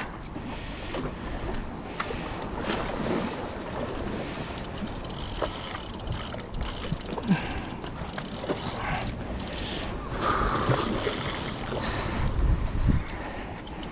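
Wind buffeting the microphone over water lapping against jetty rocks, with a stronger gust near the end. Scattered light mechanical ticks from the spinning reel being worked during the fight.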